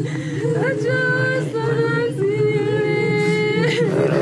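A woman wailing in grief: long, high, wavering cries, each held for about a second and sliding at its end, over a low steady hum.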